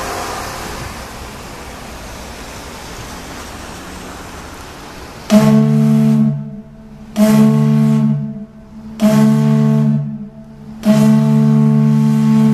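A deep, chord-like air horn sounds three blasts of about a second each, then a long unbroken blast near the end, the loudest thing heard. Before the horn starts, about five seconds in, there is only a steady outdoor hiss.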